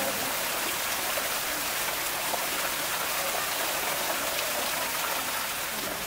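Small waterfall running over rocks into a shallow pool: a steady rush and splash of falling water.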